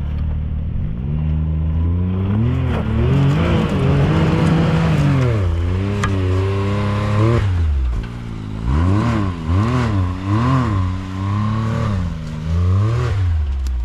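Side-by-side UTV engine revving hard on an obstacle: one long rev held for several seconds, then about five short throttle blips, the pitch rising and falling with each.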